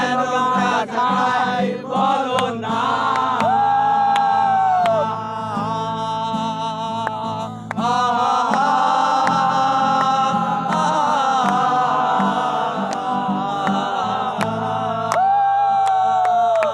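Several people singing a Bengali song together, with long held notes, over a steady rhythmic backing.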